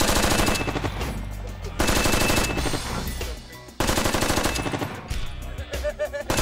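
.30-calibre minigun firing blank rounds in three rapid bursts about two seconds apart, each a dense stream of shots.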